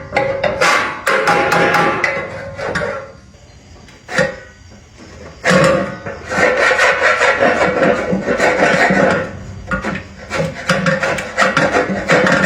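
Rapid rasping strokes of hand filing, in two spells separated by a quieter pause of about two seconds with a single knock.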